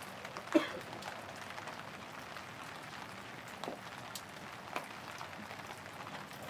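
Steady light rain falling, with scattered drop ticks and one sharper tick about half a second in.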